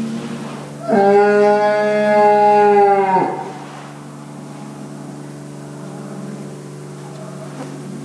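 A cow moos once, a loud call of about two seconds starting about a second in and dropping away at the end, over a steady mechanical hum.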